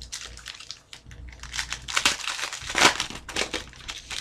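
Crinkling and rustling of a trading-card pack wrapper and cards being handled: irregular papery crackles, loudest about two and three seconds in.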